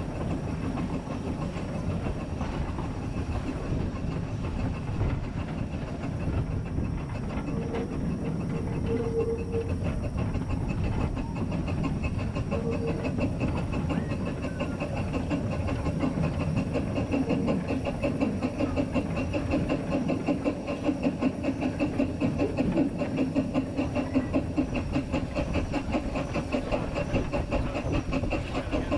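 Narrow-gauge steam locomotive, the 0-4-2 saddle tank Sir Haydn, working along the line as heard from its cab: rhythmic exhaust beats and steam hiss over the wheels clattering on the track. The beats grow stronger about halfway through.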